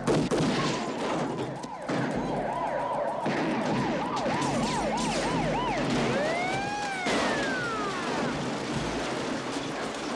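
Siren on an action-film soundtrack: a fast yelp rising and falling about three or four times a second, changing about six seconds in to a slower wail, over a dense mix of scene noise. A sharp bang right at the start.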